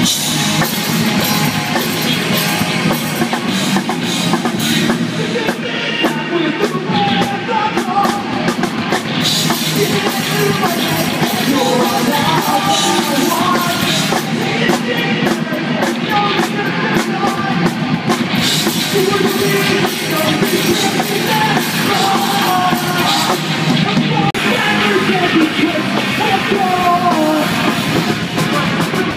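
Rock band playing live and loud: electric guitars, bass and a drum kit, with vocals at times.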